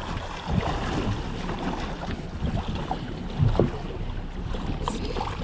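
Wind on the microphone over water slapping against the side of a boat, an uneven low rumble.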